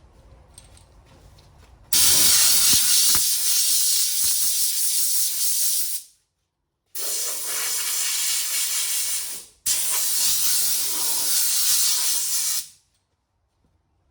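Dual-action (DA) sander running against the car's rusty body panel, knocking surface rust down with a 180-grit pad. It sounds as three separate bursts of steady, high hiss, each a few seconds long.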